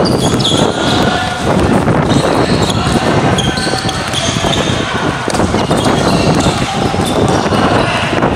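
Basketballs bouncing on a hard court, with short high squeaks and scattered voices from the players.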